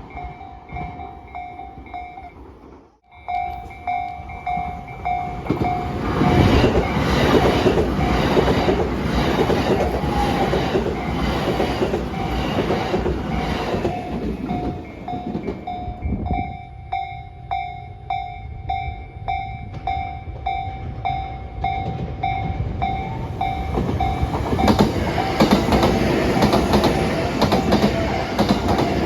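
Railway level crossing warning bell ringing over and over at about two strokes a second while trains run over the crossing, their wheels clattering rhythmically over the rail joints. The sound cuts out abruptly about three seconds in, then one train passes loudly from about six seconds on, and another comes through near the end.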